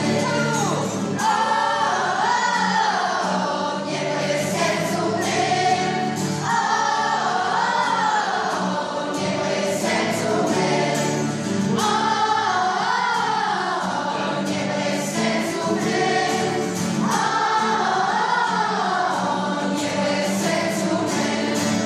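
A group of children singing a song together to a strummed acoustic guitar, the same melodic phrase coming round about every five seconds.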